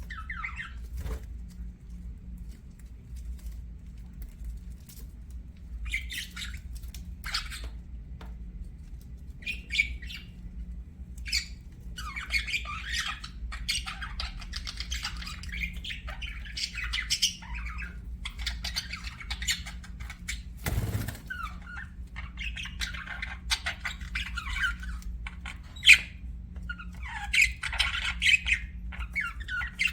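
Budgerigars chirping and chattering in scattered bursts with short pauses between them, with one brief thump about two-thirds of the way through.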